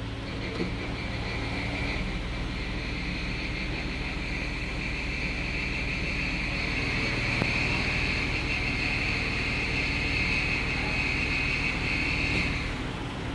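Jeep Wrangler JK 3.8-litre V6 running with a high-pitched steady whine over the engine hum; the whine cuts off sharply near the end while the engine keeps running. The whine comes when the engine is cold and stays in D or R, and it persists with the serpentine belt removed, so the belt and its tensioner are not the cause.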